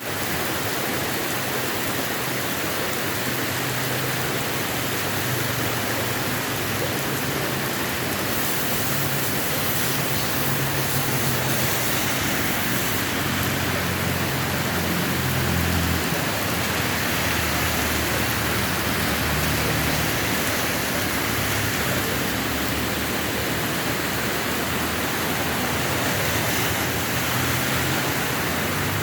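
Heavy rain pouring down in a steady rushing roar, with a low rumble that swells and fades underneath.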